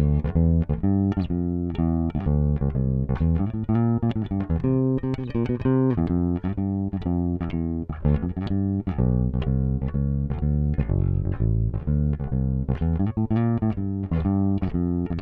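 Fender Precision Bass played solo as a steady line of plucked notes, recorded dry straight through a DI with no amp, EQ, compression or effects. The bass has a 1966 neck with a Brazilian rosewood fingerboard on a lightweight body.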